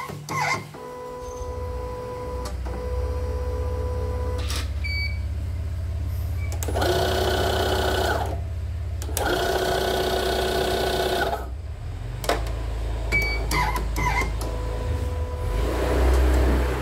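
CNY portable embroidery machine running with a low hum: a long beep, a short button beep, then its motor whirs in two bursts of about one and a half and two seconds, followed by another short beep and a second long beep. The long beep is taken by the technician as a sign that something is missing or faulty, perhaps the start button.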